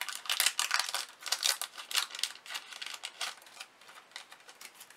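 Clear plastic packaging crinkling as a small packet of acrylic pieces is opened by hand and the pieces are pulled out. Dense crinkling for about the first three seconds, then only scattered rustles.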